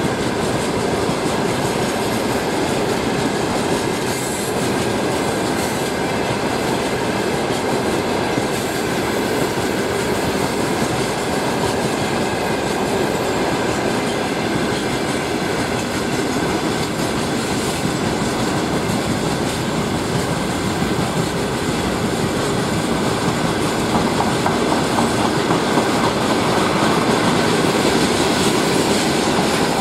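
Freight train wagons rolling past close by: a steady rumble of steel wheels running over the rails, growing a little louder near the end.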